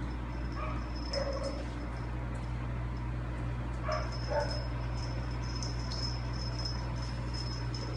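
A Formosan mountain dog whimpering: a few short whines about a second in and again about four seconds in, over a steady low hum.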